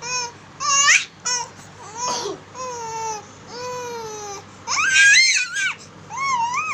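Baby fussing: a string of high-pitched cries and squeals, some drawn out and falling in pitch, with the loudest, shrillest cry about five seconds in.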